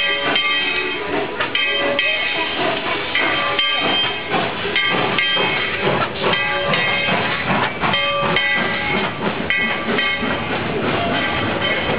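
1943 Baldwin 2-8-2 steam locomotive pulling away slowly: steam hissing and irregular exhaust chuffs. A repeated ringing tone sounds over it about once or twice a second.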